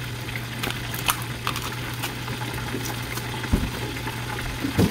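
Fresh bamboo shoot's outer sheaths being pulled off by hand: scattered crisp snaps and rustles, with a couple of dull knocks in the second half. Underneath is a steady low hum and hiss.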